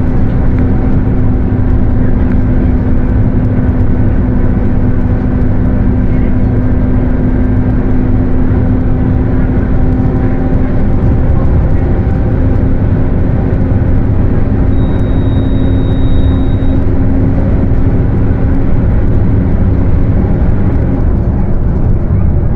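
Mercedes-Benz OF 1721 BlueTec 5 bus driving, with loud steady running noise and a steady droning hum from its differential.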